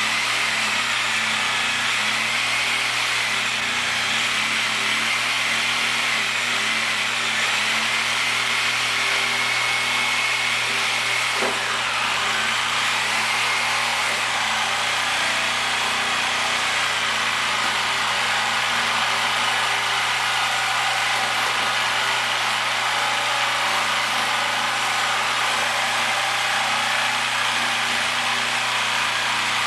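Reciprocating saw with a carbide blade running steadily, cutting through a run-flat tire's rubber and thin steel belts.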